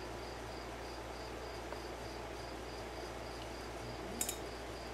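Steady high-pitched chirping, about three chirps a second, like a cricket, over a low steady hum, with a single click near the end.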